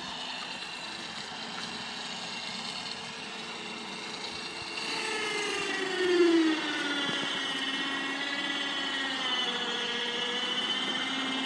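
Electric motor of a remote-controlled Harbor Freight truck-bed crane running under load as it lifts and swings a tandem kayak off a roof rack: a steady whine that grows louder and shifts in pitch about five seconds in, with a brief louder strain just after.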